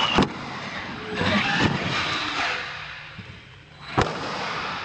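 Radio-controlled monster truck motors running, revving up and down. There is a sharp knock just after the start and another near the end, and the sound dips quieter shortly before the second knock.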